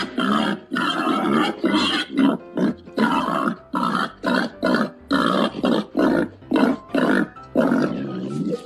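Babirusa grunting, a long run of short grunts at about two a second.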